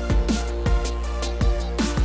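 Electronic background music with a steady beat and deep kick-drum hits that drop quickly in pitch.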